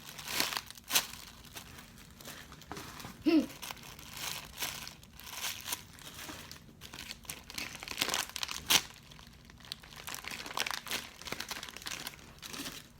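Plastic wrapping crinkling and rustling in irregular bursts as squishy toys are handled and moved around.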